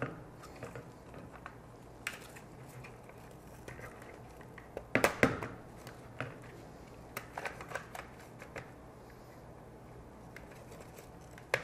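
Plastic support tabs of a Fas-Trac III hard-hat suspension being pressed into the shell of a V-Gard H1 safety helmet: scattered plastic clicks and handling rustle, with a louder cluster of snaps about five seconds in as tabs lock into place.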